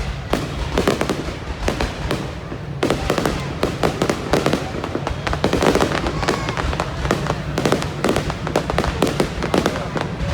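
Aerial fireworks display: a continuous barrage of sharp bangs and crackles from shells bursting, many per second, over a steady low rumble.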